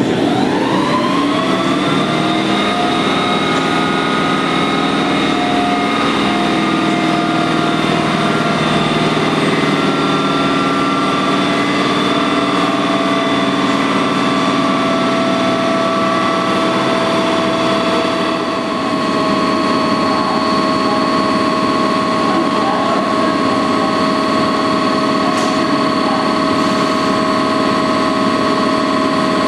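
An SNCF BB 22200-class electric locomotive's ventilation blowers spin up in about a second, then run with a steady whine of several tones while it stands at the platform. A higher tone joins a little past halfway.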